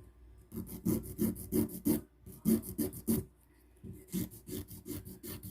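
Hand nail file rasping back and forth across a gel-coated fingernail, in quick even strokes of about three a second with a couple of short pauses, to level and shape the nail.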